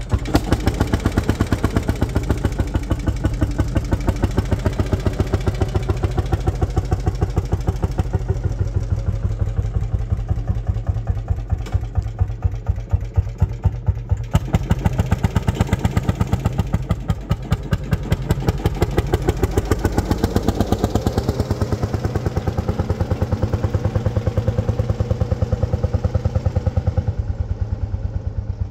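Lanz Bulldog tractor's single-cylinder two-stroke hot-bulb engine running, a steady rapid train of evenly spaced pops from its firing strokes.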